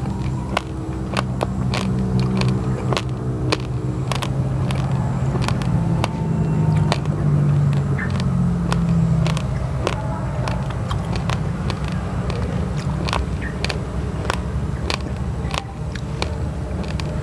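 Raw basmati and glutinous rice grains crunched between the teeth: many sharp, irregular crackling crunches of chewing. A steady low, engine-like hum runs underneath, louder in the first half.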